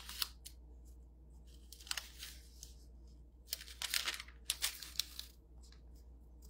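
Quiet paper rustling and crinkling in a few short bursts, with a longer stretch of rustling a little past the middle, as sheets or pages are handled.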